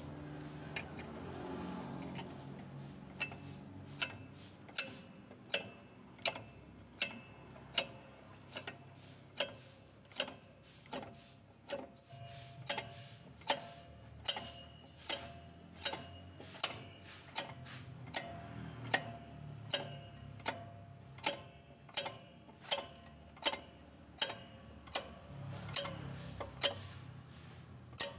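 Truck drum brake adjuster being turned notch by notch with a screwdriver through the slot in the backing plate: a steady run of sharp metallic clicks, a little more than one a second, each click one count of the brake adjustment.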